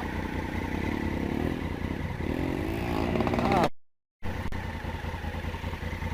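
Off-road motorcycle engine running with the revs rising and falling as it rides. The sound cuts out completely for about half a second a little past halfway, then the engine is heard again.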